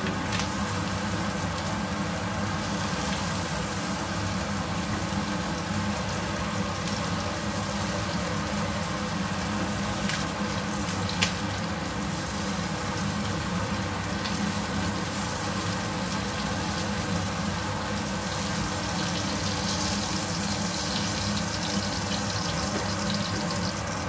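Squid frying in bubbling oil in a wok, a steady sizzle, over the constant hum of a kitchen range hood fan; one sharp knock about eleven seconds in.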